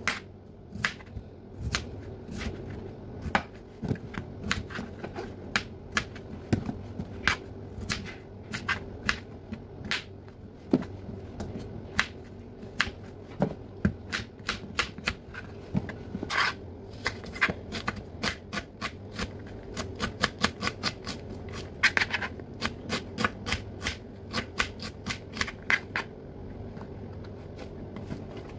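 Kitchen knife cutting vegetables on a cutting board: irregular sharp taps of the blade meeting the board, in quicker runs of chops through the second half. A steady low hum runs underneath.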